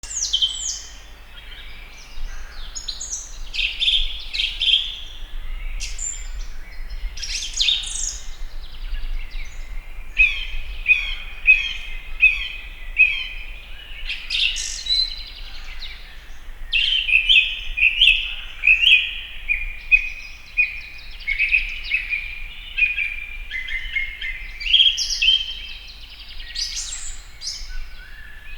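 House sparrows chirping: a continuous stream of short, high chirps, with stretches of quick repeated chirps in a row.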